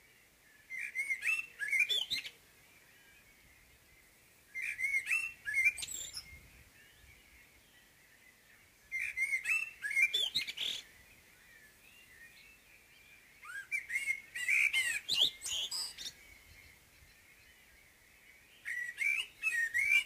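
Common blackbird (Turdus merula) giving its dawn song: five separate phrases about four seconds apart, each a short run of warbling whistled notes that ends in a higher, thinner twitter.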